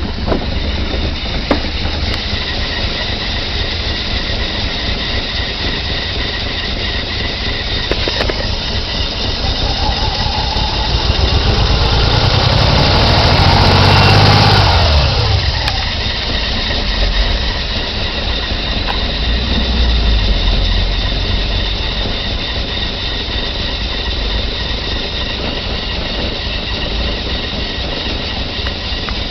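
BMW M20B20 2.0-litre straight-six idling roughly, starved of fuel by a failing fuel pump. About halfway through it is revved up over a few seconds and drops quickly back to idle.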